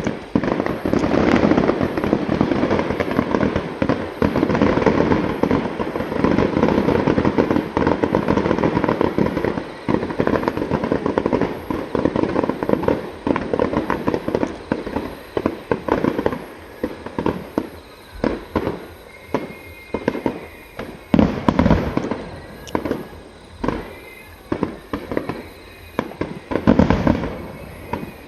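Fireworks display: shells bursting in a dense, rapid barrage for about the first ten seconds. It then thins to separate bangs and crackling, with two heavier booms later on.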